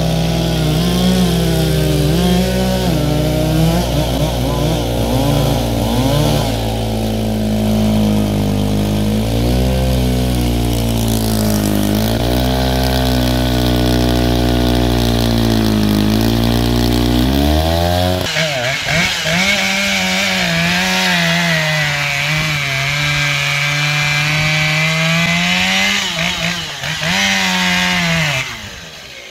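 A large vintage two-man chainsaw running under load through a thick log, its low engine note dipping and recovering. About eighteen seconds in, it gives way to a smaller, higher-pitched Dolmar chainsaw cutting a log, which stops near the end.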